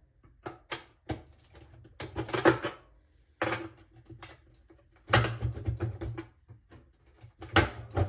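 Irregular metal clanks and knocks of a small pry bar working an LG top-load washer's stainless drum loose from its drive plate. The drum is seized on by corroded bolts and well-water scale.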